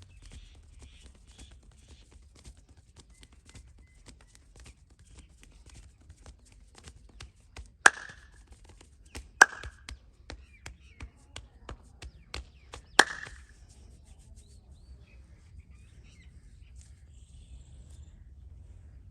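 Hand-tapping massage: quick percussive taps and slaps of hands on a person's head and back, with three loud sharp slaps about 8, 9½ and 13 seconds in. The tapping dies away after about 14 seconds.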